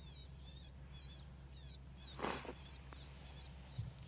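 Electronic predator caller playing a baby cottontail distress call: a high, wavering squeal repeated about twice a second. About two seconds in, a short, louder rush of noise cuts across it.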